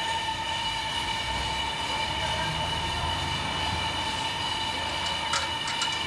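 Homemade camshaft grinder running: the belt-driven grinding wheel and its drive give a steady whine over a low rumble, with a few light clicks near the end.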